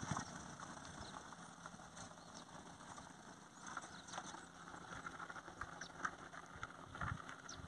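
Faint sound of a small Maruti Suzuki Alto hatchback driving away along a road, its engine a low hum, with short high chirps now and then.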